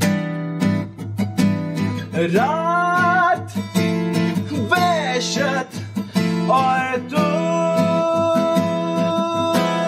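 Strummed acoustic guitar with a man singing over it, live; about seven seconds in he holds one long steady note.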